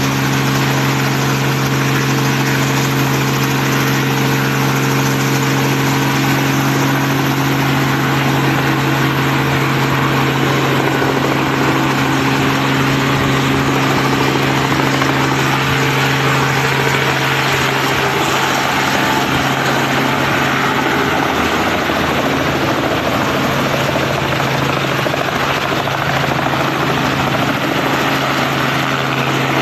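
Light two-bladed helicopter running on the helipad close by: a steady low drone of engine and rotor with a noisy wash above it. About two-thirds through, the even drone turns rougher and less steady, and the helicopter lifts off the pad near the end.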